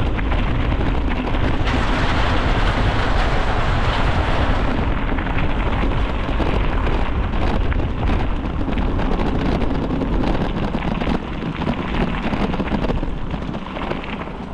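Wind buffeting the microphone of a camera riding along on a moving bicycle: a loud, steady rumbling rush, easing slightly in the last few seconds.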